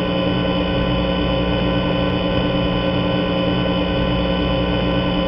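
Steady electronic alert tone, several fixed pitches sounding together without any change in pitch or level.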